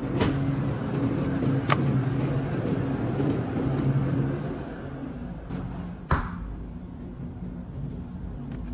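Carton and cooler-door handling at a supermarket dairy case: a few sharp clicks, then one loud knock about six seconds in, over a steady low hum.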